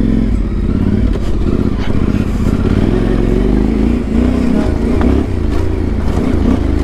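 Yamaha Ténéré 700's parallel-twin engine running under load on a rough dirt track, its revs rising and falling with the throttle.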